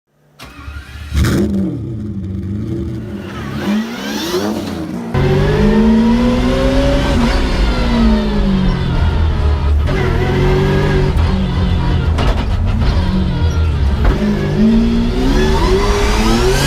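Twin-turbo 6-litre M120 V12 in a Mercedes W202 drift car revving up and down, with the high whine of its custom straight-cut manual gearbox rising and falling along with the revs. It gets much louder about five seconds in.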